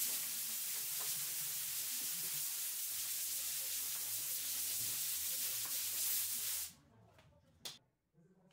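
Compressed-air blowgun on an orange air hose blowing a steady, loud hiss across a melamine epoxy mould, clearing dust before the release wax goes on. The hiss cuts off abruptly, and a single sharp click follows about a second later.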